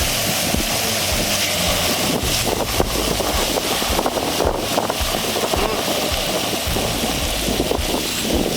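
Chicken strips sizzling and crackling in a hot skillet over a burner, a steady hiss dotted with small pops. Wind rumbles on the microphone underneath.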